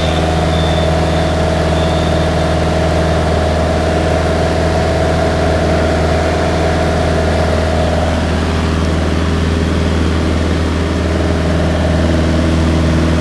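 Single-engine light aircraft heard from inside the cockpit: the engine and propeller droning steadily in flight, with a deep hum under it. The tone shifts slightly about eight seconds in.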